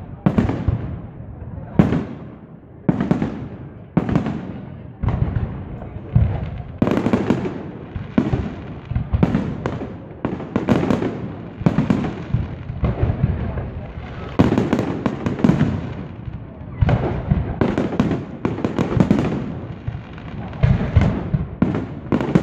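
Fireworks display: aerial shells bursting in a close series of sharp bangs, about one a second at first and coming thicker as it goes on.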